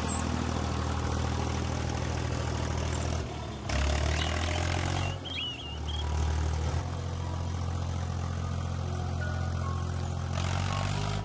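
Tractor engine running steadily with a low even note, which shifts in pitch and loudness a few times between about three and seven seconds in.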